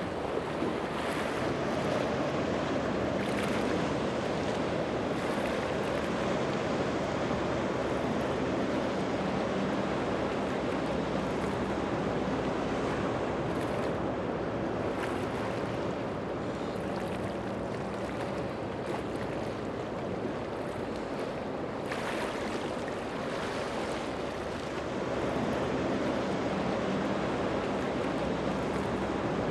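Outboard-powered boats running past at speed: a steady engine drone under the rush of hull spray, wake and surf.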